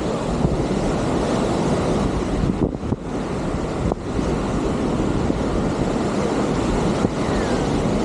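Wind buffeting the camera microphone in a steady low rumble, with the wash of surf on the beach behind it.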